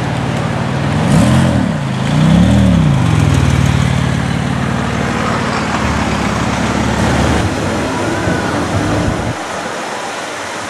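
Porsche 911 Turbo (997) twin-turbo flat-six blipped twice, about one and two and a half seconds in, then pulling away at low speed with a steady note that fades. Quieter street traffic near the end.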